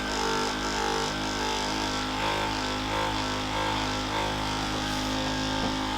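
Handheld electric massager running steadily, its motor giving an even drone as it works the calf muscles.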